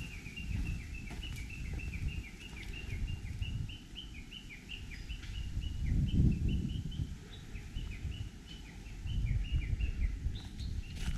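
A bird chirping in a rapid, continuous run of short, high, falling notes, several a second. Underneath is a low, uneven rumble that swells twice.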